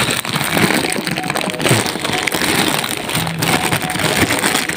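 Thin clear plastic packaging bag crinkling and rustling as it is handled and worked open by hand, a dense crackle of small ticks that never stops.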